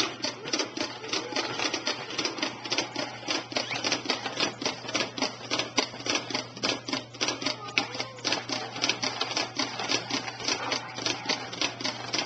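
Baby jumperoo clicking and rattling rapidly and irregularly as a baby bounces in it, the plastic seat, frame and toy tray knocking with each bounce.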